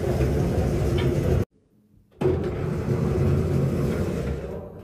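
Lift car running between floors: a loud, steady rumble and hum, broken off for about half a second near the middle and dying away near the end.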